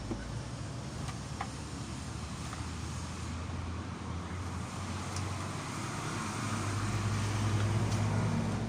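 Car engine running steadily, then rising in speed and getting louder about seven seconds in. The car is being checked after a module was replaced to cure a misfire, and the owner reports there are still signs of misfire.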